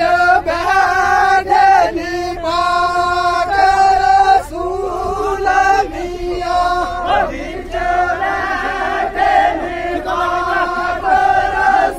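A group of men chanting in unison, held notes in repeated phrases with short breaks between them.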